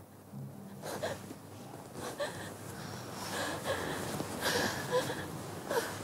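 A woman gasping and breathing hard in short, uneven breaths with small whimpers, waking in distress from a nightmare.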